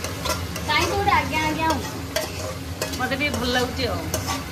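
Metal spoon scraping chicken marinade out of a steel mixing bowl, with several sharp clinks of spoon on metal. Food sizzles in the hot pot below.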